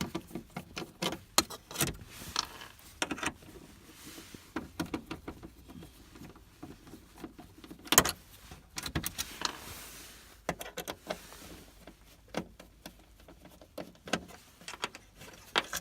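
Scattered clicks, taps and small rattles of a screwdriver working Phillips screws out of a car's interior panel, with loose screws and metal bits clinking, and one sharper knock about halfway through.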